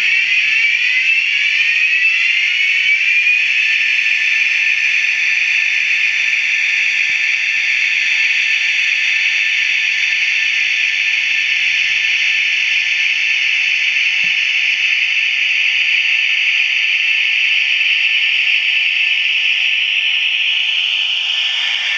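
Digital electric-locomotive sound from a LokSound v4 decoder in an HO-scale Great Northern W-1 model, played through the model's small speaker. A whine rises in pitch over the first few seconds, then holds as a steady high hum.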